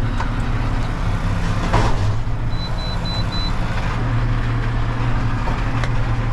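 Valtra tractor engine running steadily under load with a Krone round baler working behind it. About two and a half seconds in, four short, high electronic beeps sound in quick succession.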